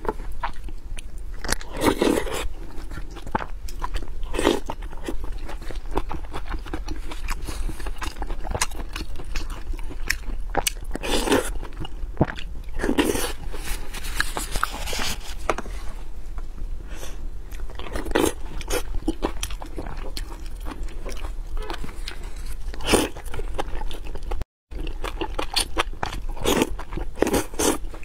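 Close-miked eating sounds of a person chewing braised pork and fried rice: irregular wet biting, chewing and mouth clicks.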